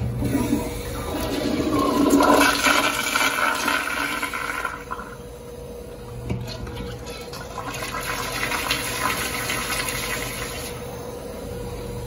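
Commercial toilet flushed with its chrome flush-valve handle: a rush of water that peaks two or three seconds in and eases off around five seconds, then a second, quieter stretch of hissing water that stops near the end.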